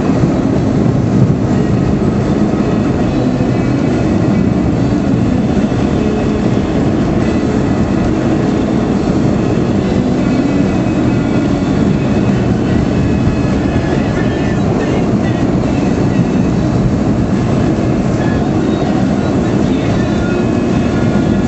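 Steady low rumble heard from inside a moving car on a snow-covered road: engine and tyre noise.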